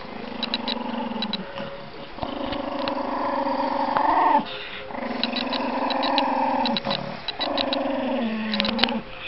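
Small dog growling: four drawn-out growls, each a second or two long with short breaks between, the pitch dropping at the end of each.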